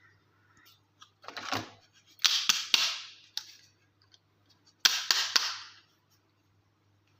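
Toy packaging being opened: three bursts of sharp snaps and crackling, about a second in, again after two seconds, and near the five-second mark, under a low steady hum.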